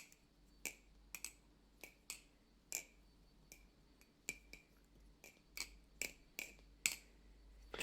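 Balisong (butterfly knife) being flipped, its handles clacking together in short sharp clicks at an irregular pace, about two or three a second, with a clanky sound. The pivots are freshly lubricated with a thick oil.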